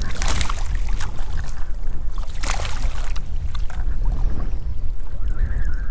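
Wind buffeting the microphone as a steady low rumble over the rush of a shallow stream, with two brief louder rushes of noise, one just after the start and one about two and a half seconds in.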